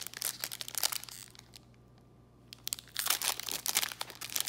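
Foil wrapper of a Panini Fortnite Series 2 trading card pack crinkling and tearing as it is opened by hand: crackling for the first second or so, a short lull, then denser crinkling from about three seconds in.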